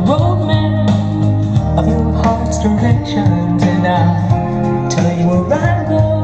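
Guitar music with gliding, slide-like notes, played back through a circa-1965 Electro-Voice Coronet two-way loudspeaker.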